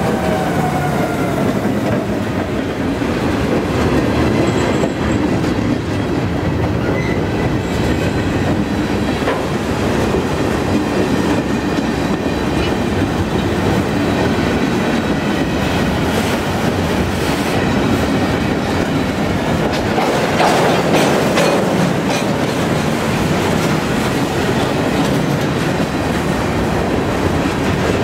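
Freight train of empty aluminum-ingot flatcars rolling past at close range: a steady rumble of steel wheels on rail with clickety-clack over the rail joints, louder rattling about twenty seconds in. At the start, the trailing diesel locomotive's engine drone drops in pitch as it moves away.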